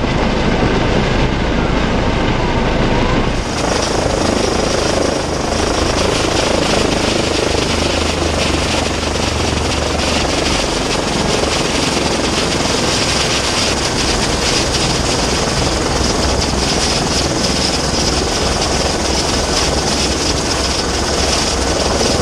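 Helicopter idling on the ground with its main rotor turning: a loud, steady rotor and turbine-engine noise with a high whine over it.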